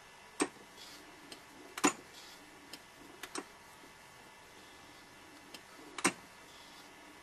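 Rotary microtome clicking as a paraffin block is trimmed: sharp mechanical clicks roughly every one and a half to two seconds, with fainter ticks between them.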